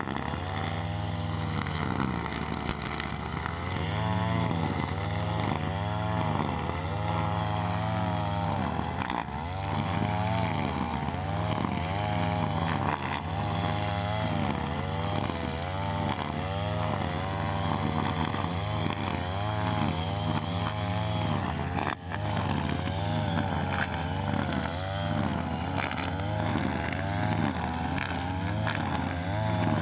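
Petrol brush cutter running steadily while cutting grass. Its pitch rises and falls every second or so as the blade swings through the grass, with a brief dip about two-thirds of the way through.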